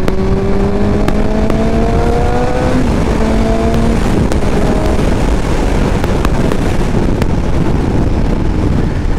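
Suzuki GSX-S750's inline-four engine accelerating, its note rising steadily for about three seconds. It then fades under a steady rush of wind noise at highway speed.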